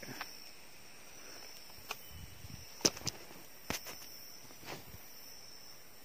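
Footsteps and handling noise on dry forest-floor litter: a few sharp clicks and snaps, the loudest about three seconds in, over a faint steady high insect drone.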